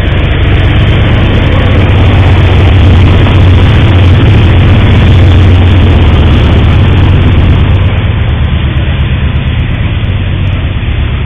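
Diesel freight locomotive passing close by, its engine running loud with a heavy low hum over the rush of the moving train. Then freight cars roll past, and the sound eases off near the end.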